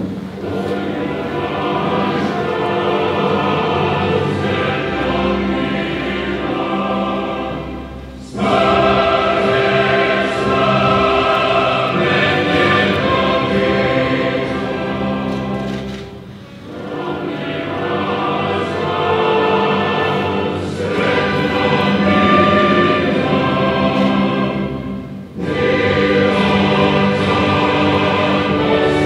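A choir singing a solemn anthem in long held phrases, with a short break between phrases about every eight seconds.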